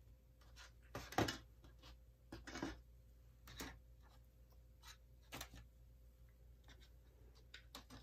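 Plastic paint cups being slid and set down on a work table: a scatter of faint, brief knocks and scrapes, the clearest about a second in.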